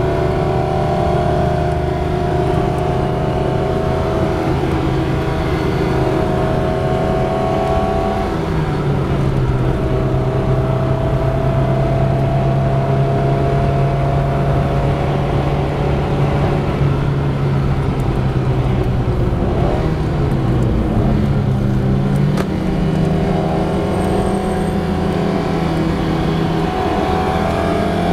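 Alfa Romeo 75 2.0 Twin Spark's four-cylinder engine running under way, heard inside the cabin. Its note holds fairly steady with gradual rises, drops in pitch about eight seconds in and again right at the end, and dips then climbs again around twenty seconds, along with road noise.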